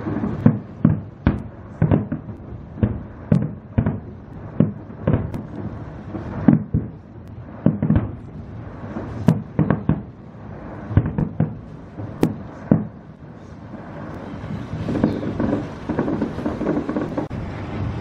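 Fireworks display: an irregular series of sharp bangs from bursting shells, one or two a second. About three-quarters of the way through, the single bangs give way to a denser, steadier stream of small bangs.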